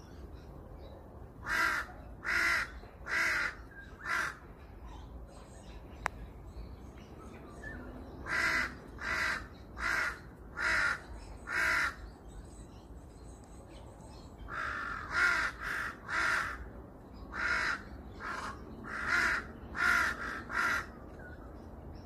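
Crow cawing in three runs of caws: four, then five, then a longer run of about eight.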